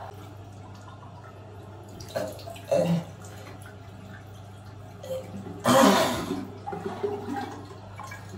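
Face being washed at a bathroom sink: water splashed onto the face from cupped hands a few times, about two and three seconds in and loudest around six seconds, over a steady low hum.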